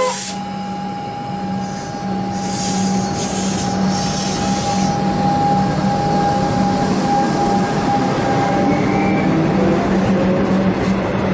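Melbourne suburban electric train pulling away from the platform: a steady electric hum and rumble that grows louder as it gathers speed, with faint rising tones from the traction motors in the last few seconds.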